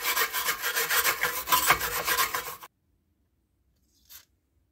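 A hand wire brush scrubs rust off a rear brake disc and hub in fast back-and-forth strokes, then stops suddenly a little before three seconds in. Near the end comes one short hiss of an aerosol lubricant spray aimed at the handbrake shoe springs.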